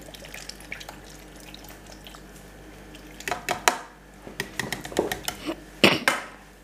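Kitchen dishes and utensils being handled by a sink: a few faint clicks, then about three seconds of clattering knocks, the loudest a sharp knock near the end.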